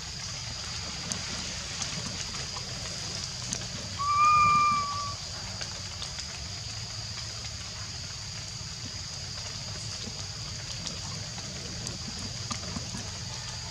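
A baby macaque gives a single clear, pitched coo lasting about a second, about four seconds in. Behind it runs a steady high-pitched hiss.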